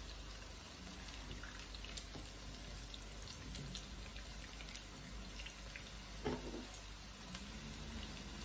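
Zucchini fritters shallow-frying in oil in a pan: a faint, steady sizzle with many small crackles and pops. A short thump about six seconds in.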